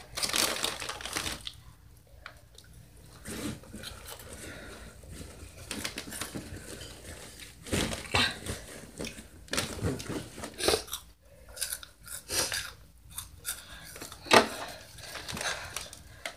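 Irregular crunching, rustling and clicking close to the microphone. A sharp knock about fourteen seconds in is the loudest sound.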